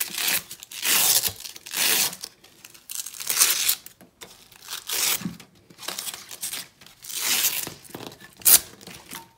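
Hook-and-loop (Velcro) straps on a plate carrier being pulled apart, a series of short ripping tears, about seven of them, each under a second.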